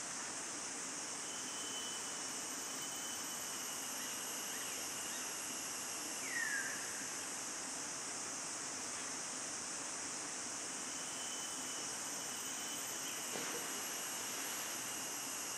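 Forest ambience: a steady high-pitched insect drone, with a single short downward-sliding bird whistle about six seconds in.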